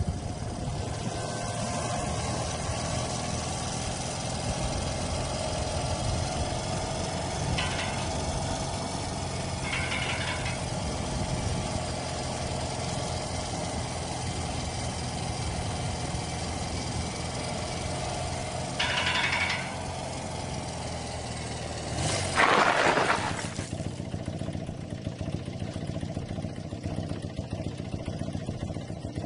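Motorcycle engine running steadily, with a few short higher-pitched sounds and a louder rushing noise about three quarters of the way in.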